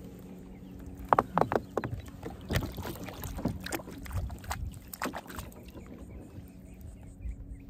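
Water splashing and knocking at the side of a kayak as a redfish is released: a quick cluster of sharp splashes about a second in, then scattered splashes for a few more seconds.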